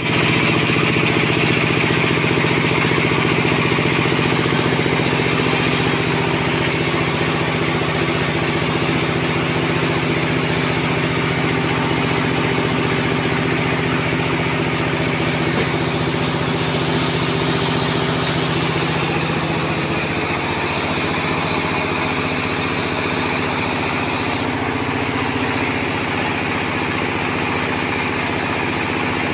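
Band sawmill's power unit running steadily with an even hum while no log is being sawn.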